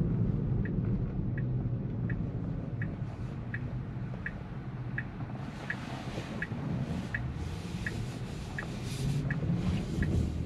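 A Tesla's turn-signal ticking, about three even ticks every two seconds, over the low road and tyre rumble in the car's cabin as it turns at an intersection.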